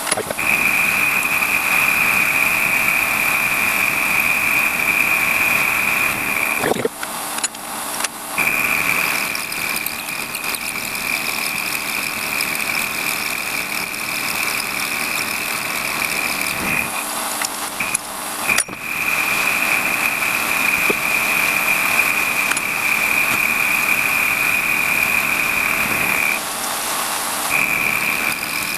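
WARCO lathe running while a rotating cutter machines the face of a metal block, with a steady high-pitched whine from the cut that breaks off briefly three times.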